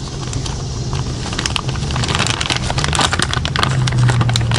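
Plastic wiring harness and plug connectors being handled: many small clicks and crackles, over a steady low hum.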